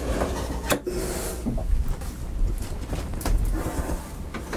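A few sharp knocks and clicks, one under a second in, one about three seconds in and one at the end, with soft rubbing and a low rumble between: handling and knocking noise in the boat's small head compartment.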